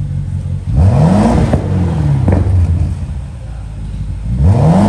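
BMW X6 with a race downpipe and straight-pipe exhaust, revved twice from idle while standing still. The revs climb and fall back about a second in, then climb again near the end, with a couple of sharp cracks as the first rev drops.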